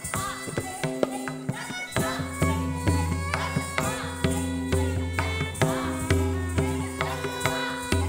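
Kathak dance music led by tabla: sharp, ringing strokes over a steady held note, with deep booming bass-drum strokes coming in about two seconds in and recurring.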